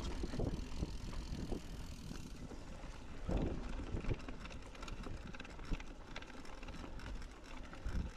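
Mountain bike being ridden off-road: rumbling tyre noise and irregular knocks and rattles from the bike over rough ground, with wind buffeting the microphone.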